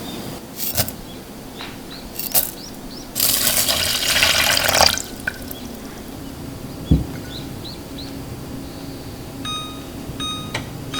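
Kitchen work sounds: a few light clicks, a tap running for about two seconds, then a single knock. Near the end come a few short electronic beeps, as from an appliance's buttons.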